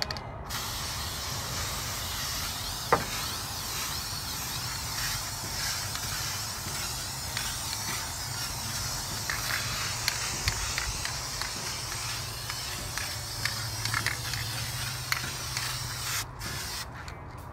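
Aerosol spray can laying a third coat of gold engine paint onto a valve cover: a steady hiss that breaks into a few short bursts near the end. A single sharp click about three seconds in.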